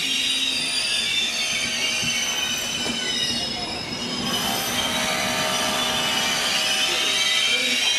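Trenitalia Intercity passenger coaches rolling slowly past along the platform, their wheels squealing against the rails. The squeal is a cluster of high steady tones that shift about halfway through.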